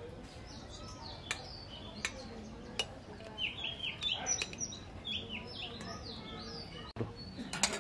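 Small birds chirping busily, with short falling chirps over and over. A few sharp clinks of a metal ladle against an aluminium pot and steel plate sound out as cooked rice is dished out.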